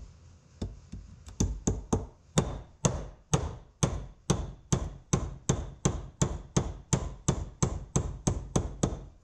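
Hammer striking a steel pin punch to drive roll pins out of the pinion shafts of a Farmall 300 torque amplifier's planet carrier: a steady run of metal-on-metal blows, about three a second, starting under a second in.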